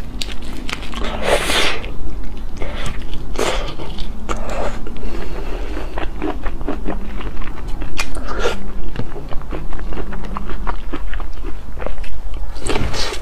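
Close-miked wet eating sounds from raw soy-marinated shrimp: biting through the shells, sucking and chewing. Crunchy clicks mix with several louder wet slurping bursts.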